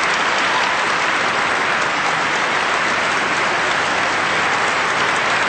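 Large audience applauding steadily, a dense, even wash of clapping.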